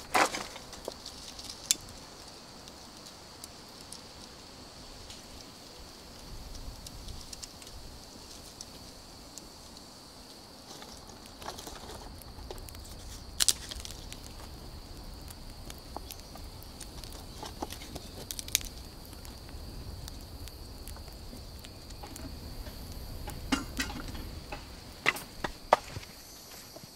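A steady high-pitched insect drone, with scattered sharp cracks and knocks of dry sticks being handled and snapped by hand, the loudest crack about halfway through and several more near the end.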